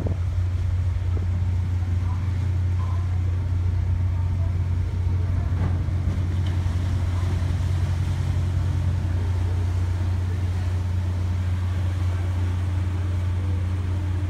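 Passenger ferry's diesel engine running with a steady low drone.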